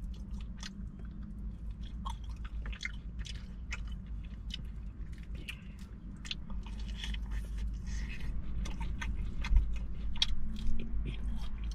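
Close-miked chewing and biting of crunchy food, with many short crisp crackles and wet mouth clicks.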